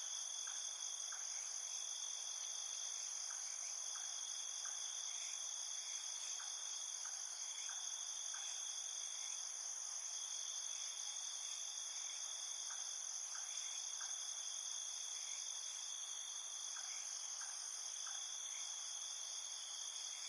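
Crickets chirping in a night field: a dense, steady high-pitched trill from many insects, with short single chirps from nearer ones dotted irregularly through it.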